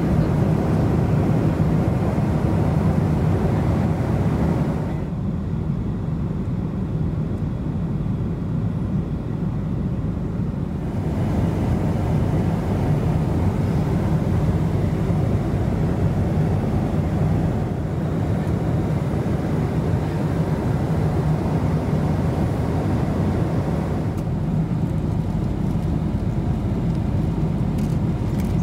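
Steady cabin noise of a Boeing 747-400 in cruise: engine and airflow drone, strongest in the low range. It turns duller for a few seconds about five seconds in and again near the end.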